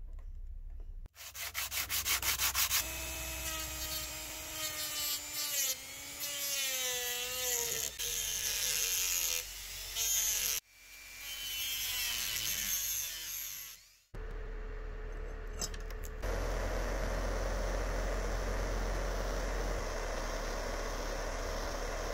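Small rotary tool with a cutoff disc grinding a groove along a crack in a cast metal frame, ahead of welding. It runs in several separate runs, its whine rising and falling in pitch as the disc bites and eases off, and ends in a steadier rushing grind.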